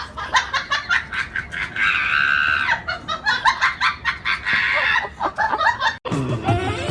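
A quick run of short, repeated animal squawks and clucks, several a second, cutting off abruptly about six seconds in.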